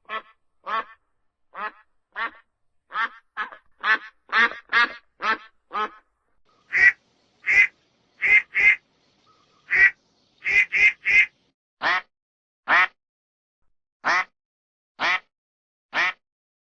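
Duck quacking: a long series of short single quacks, softer and quicker in the first six seconds, then louder and more spaced out, with some in quick runs of two or three.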